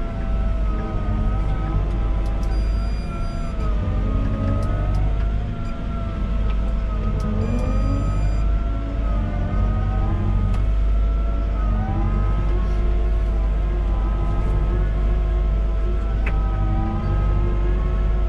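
Volvo EWR150E wheeled excavator at work: its diesel engine runs with a steady low hum, under a hydraulic whine that wavers and glides up and down in pitch.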